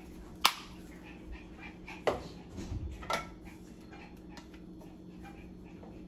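A few sharp clicks and knocks of kitchen items being handled, the loudest about half a second in and more around two and three seconds, over a steady low hum.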